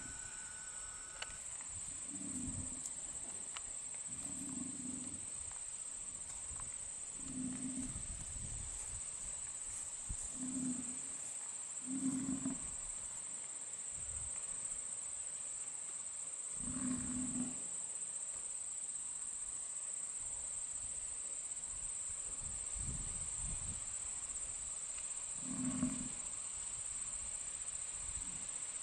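American bison giving short low grunts, irregularly every few seconds, over a steady high trill of crickets.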